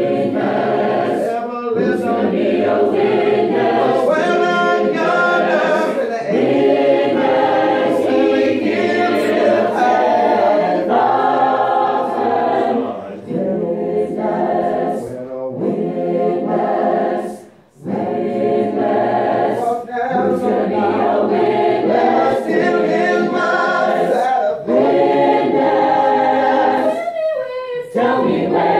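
High school choir singing, heard from among the singers, with a short break about 18 seconds in.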